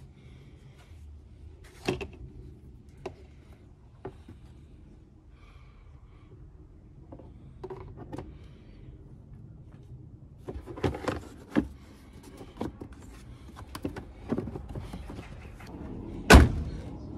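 Scattered clicks and knocks of car parts being handled during hands-on work on a car, busier in the second half, with one sharp, loud thunk near the end.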